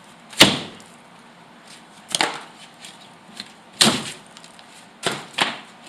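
Sharp knocks and cracks of a decayed wall being broken open by hand, five strokes one to two seconds apart, the first the loudest.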